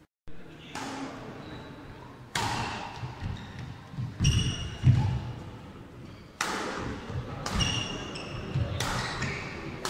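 Badminton rally on an indoor court: rackets smacking the shuttlecock and feet landing on the court floor, sharp echoing hits about every second, with short high squeaks among them.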